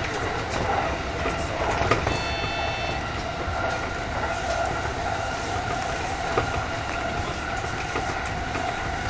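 Electric commuter train running on rails, heard from inside the front car: a steady rumble of wheels on track under a continuous whine, with occasional clicks over rail joints. About two seconds in, a brief high tone sounds for about a second.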